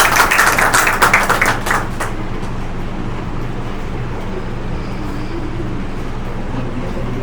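Audience applauding, with the clapping dying away about two seconds in. A steady low hum remains after it.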